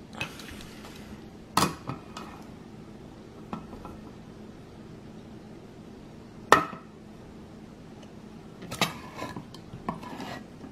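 KitchenAid handheld can opener being clamped onto a metal can of black beans and cranked: scattered metallic clicks and clanks, the loudest about six and a half seconds in, with a run of closer clicks near the end.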